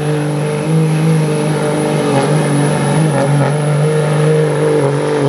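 Diesel pulling truck's engine running loud at steady high revs, holding nearly level pitch.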